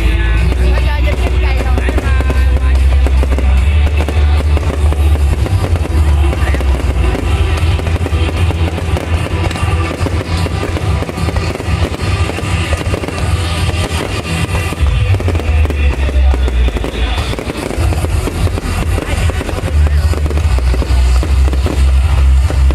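Aerial fireworks going off in quick succession, a dense run of booms and crackling bursts with music playing alongside.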